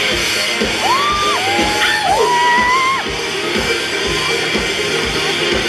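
Live rock band playing a song's instrumental intro, with a steady kick-drum beat under guitars. Between about one and three seconds in, a few sliding whooping yells rise and fall over the music.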